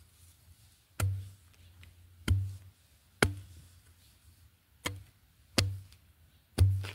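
Metal digging blade chopping into root-filled soil to dig out wild yam tubers: six sharp strikes, roughly one a second, each with a dull thud and a short metallic ring.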